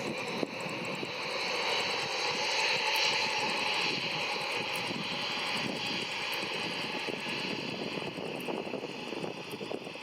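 Embraer E190LR airliner's twin GE CF34 turbofan engines running at takeoff power: a steady jet noise with a thin high whine, growing louder over the first three seconds and then easing slightly. A brief click near the start.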